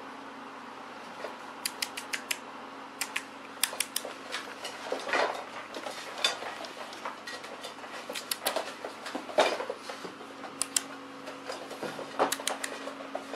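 Husky puppies scuffling over a rope toy on a hard floor: irregular sharp clicks and taps of claws and the toy, with a few short louder bursts, over a steady low hum.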